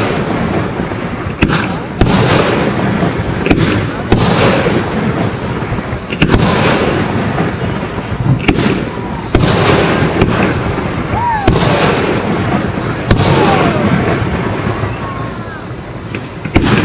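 Fireworks display: aerial shells bursting in a series of sharp booms, one every second or two, each trailing off in an echoing rumble.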